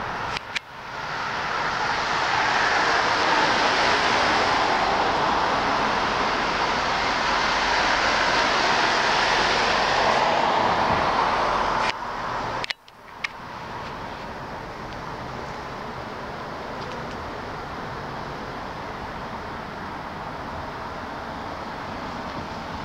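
Road traffic noise: an even rush of passing vehicles, loud for the first twelve seconds or so, then quieter and steady. The sound cuts out briefly with a click twice, near the start and just before the middle.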